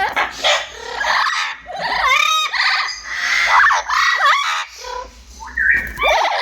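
Amazon parrot calling: a string of loud squawks and calls that swoop up and down in pitch, with short pauses between.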